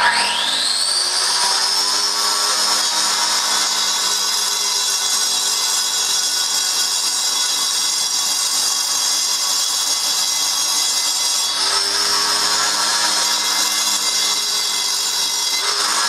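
Electric angle grinder with a cutting disc spinning up, its whine rising over the first second, then cutting through a paving slab with a steady high whine and grinding rasp. The load shifts briefly about two-thirds of the way through.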